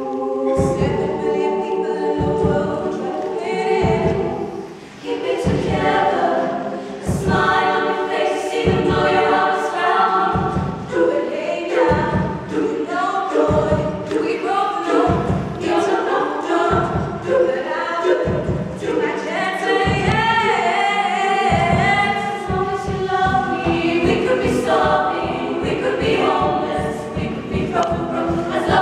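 Women's choir singing with a marching bass drum keeping time with single beats about every second and a bit, switching about two-thirds of the way through to a rapid roll of strokes.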